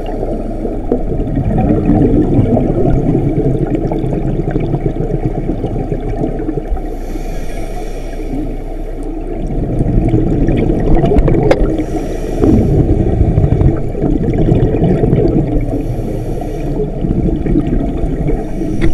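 Underwater sound heard through an action camera's waterproof housing: a muffled, low rush of water, broken three times in the second half by bursts of bubbles from a scuba regulator's exhaust as the diver breathes out.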